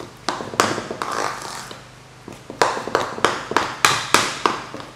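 A spoon stirring thick buttercream in a bowl to work in food colouring: a run of short scraping, squelching strokes, a few spread out at first, then a quicker, louder run of about eight strokes in the second half.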